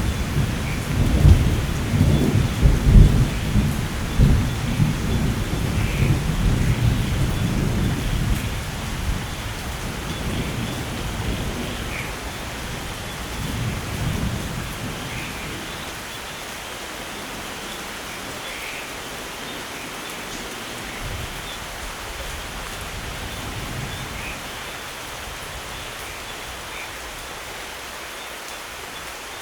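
Steady rain with a long rumble of thunder that is loudest at the start and dies away over about the first fifteen seconds, leaving the rain alone.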